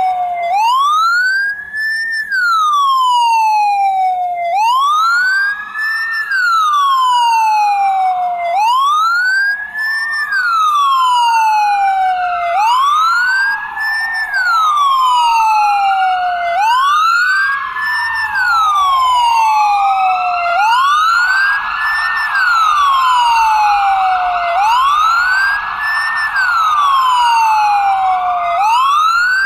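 Ambulance siren wailing: the pitch rises, then falls more slowly, repeating about every four seconds, with a second, fainter wail overlapping out of step.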